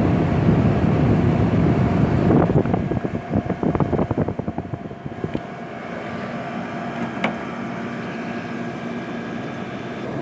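1981 Emerson Quiet Kool 18,000 BTU window air conditioner running, its compressor humming; after a few seconds of uneven fluttering the compressor shuts off about five seconds in, and the unit carries on with a quieter, steady fan hum. A single short click comes a little later.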